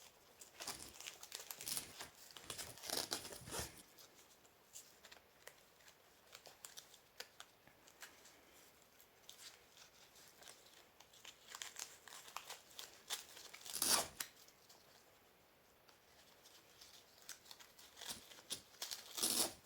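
Faint rustling, scraping and light clicks of a plate carrier's nylon webbing straps and quick-release buckle being handled and threaded, busiest in the first few seconds. There is a louder sharp rip about 14 seconds in.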